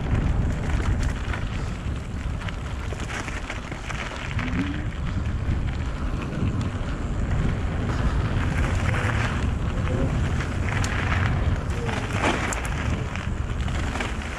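Wind buffeting the microphone of a mountain bike descending a gravel trail at speed, over the steady hiss of tyres rolling on loose gravel, with scattered clicks and rattles from stones and the bike.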